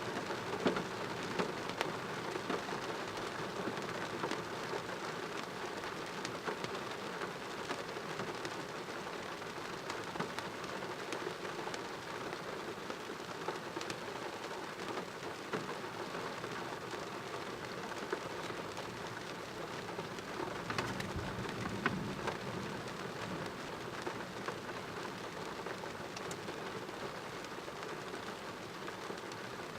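Heavy rain falling steadily in a thunderstorm, with many close drop hits. A brief low rumble of thunder comes about two-thirds of the way through.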